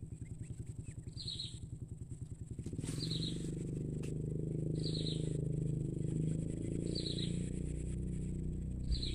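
A motorcycle engine running close by, its low pulsing note turning into a steadier, louder drone about three seconds in. A bird gives a short high call about every two seconds over a steady high insect buzz.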